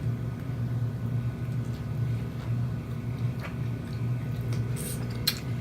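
A person chewing and smacking wet, sauced seafood boil with the mouth, with a few sharp squishy clicks, over a steady low hum.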